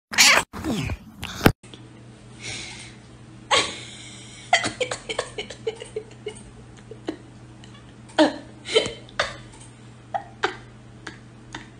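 A cat's loud, close calls with a falling pitch, cut off sharply. Then a string of soft wet clicks and smacks, as a tabby cat licks another cat's head, over a low steady hum.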